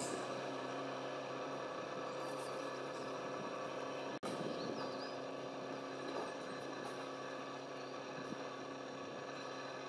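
An engine running steadily in the background, a continuous even drone that cuts out for an instant about four seconds in. A few faint high chirps sit over it.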